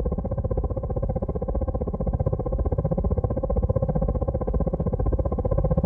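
A loud, steady low buzzing drone with a fast, even pulse.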